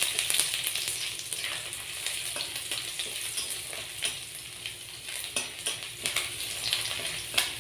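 Crushed garlic cloves sizzling in hot oil in a kadai (Indian wok) as they fry, stirred now and then, with scattered light clicks.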